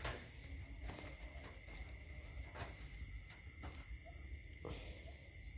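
Night insects trilling steadily, a thin continuous high note, with faint scattered clicks and rustles.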